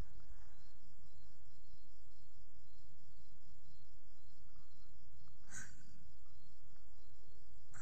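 Crickets chirring steadily in the background, a fast even pulsing trill, over a low steady hum. A short sharp knock about five and a half seconds in.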